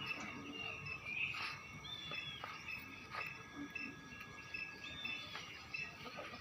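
Faint outdoor ambience of small birds chirping, with brief whistled notes about two seconds and five seconds in, over insect sounds and a few light clicks.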